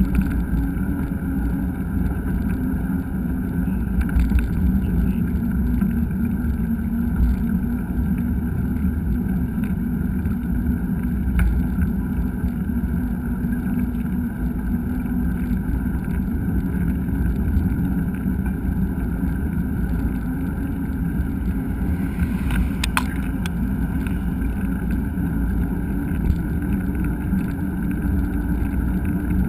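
Steady low rumble of wind buffeting a helmet- or bike-mounted action camera's microphone while a mountain bike rides along a trail, with a few brief clicks.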